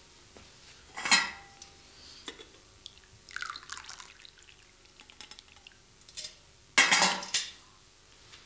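Tea poured from a small teapot into a glass, a brief trickle falling in pitch a little after three seconds in. Crockery clinks come between, with two louder knocks, about a second in and about seven seconds in, the later one the loudest.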